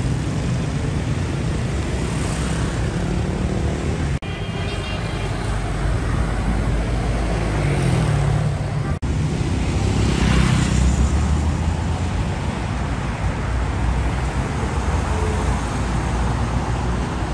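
City street traffic: cars, SUVs and motorbikes passing with steady engine rumble and tyre noise. Two brief sudden dropouts come about 4 and 9 seconds in, where the clips are cut together, and a passing vehicle swells louder about 10 seconds in.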